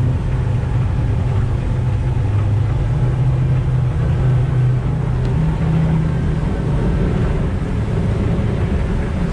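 The Kingfisher 3025 Destination's 400-horsepower outboard engines running with the boat underway, heard as a steady low drone over wash and wind noise.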